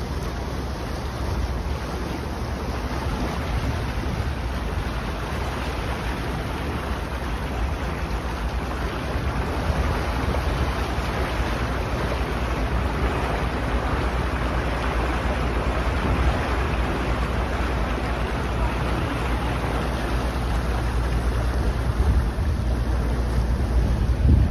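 Boat under way through open water, with a steady rush of wind and water and heavy wind buffeting on the microphone; it grows slightly louder toward the end.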